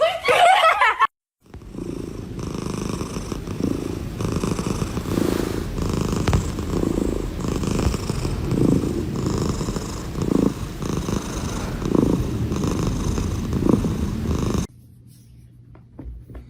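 A domestic cat purring loudly, close to the microphone. The purr swells and eases with its breaths about once a second and cuts off a couple of seconds before the end. A short, loud, rising sound comes just before it, in the first second.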